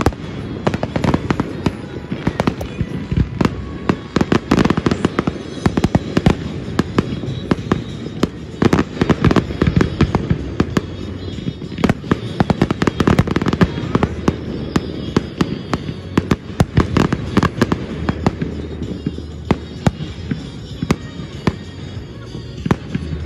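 Aerial fireworks display: shells bursting in rapid succession, with overlapping booms and crackling. The bursts thin out somewhat in the last few seconds.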